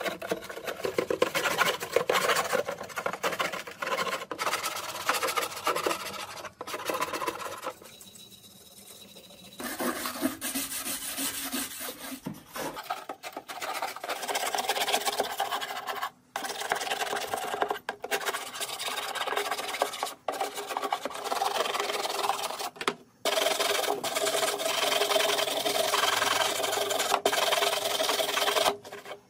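A hand scraper scraping caked dirt off the cabinet of an old Sony Trinitron TV in quick, rasping strokes. The scraping stops abruptly several times and starts again.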